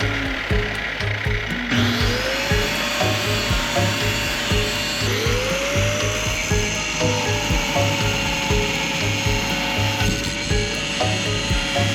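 Background music with a steady beat, short stepping notes and a couple of rising glides.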